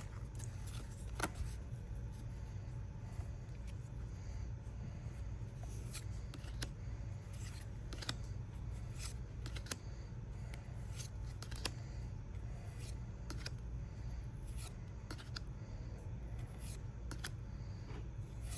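Faint clicks and soft sliding of Pokémon trading cards being handled and flipped one by one, over a steady low hum.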